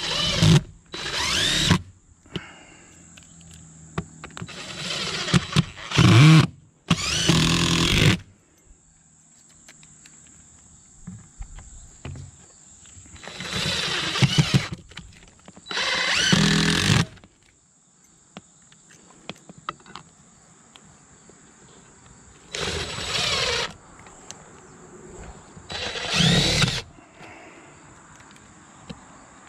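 DeWalt cordless drill driving screws through a steel chimney-pipe support bracket into the roof deck and trusses, in about nine short runs of a second or so, each spinning up in pitch, with pauses between them.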